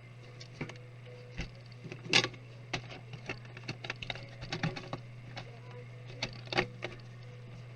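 Scattered sharp clicks and light knocks from laptop parts and tools being handled, loudest about two seconds in and again near the end, over a steady low hum.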